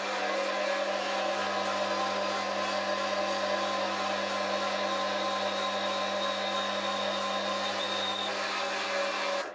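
Foreman TB1835 mini lathe running steadily under a light finishing cut along the bar. It makes a steady hum with several steady tones. A faint high whistle joins for a few seconds in the middle, and the sound cuts off suddenly at the end.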